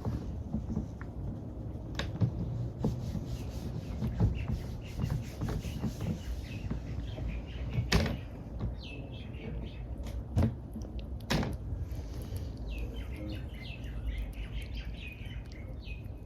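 Scattered knocks and clicks over a steady low hum, with short high bird chirps coming in about halfway through and again near the end.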